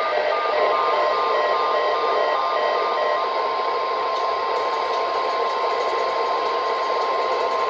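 NOAA Weather Radio 1050 Hz warning alarm tone: one steady, unbroken tone over radio static. Short repeated beeps at several other pitches sound alongside it and stop about three seconds in.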